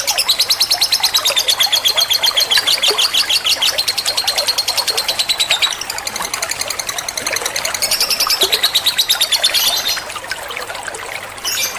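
Lovebird song: a rapid, unbroken chattering trill of about ten notes a second, shifting pitch a few times. It falls away about ten seconds in to a few softer, scattered notes.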